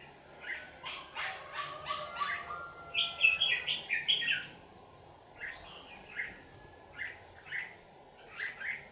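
Red-whiskered bulbuls singing combative, territorial song in quick chattering phrases. The song is loudest and busiest about three to four seconds in, then thins to short calls about every half second.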